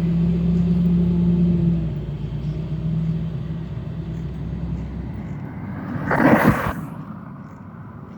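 A motor vehicle engine running with a steady low hum that fades away after about five seconds. About six seconds in there is a brief, loud rush of noise.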